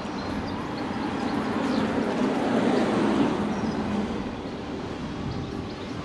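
A motor vehicle passing close by on the street, its engine and road noise swelling to a peak about three seconds in and then fading away.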